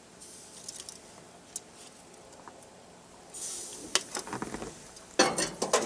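Metal tongs clicking and scraping as chunks of fat are picked out of a grill's drip pan and dropped into a plastic strainer, with a louder clatter of several sharp knocks near the end.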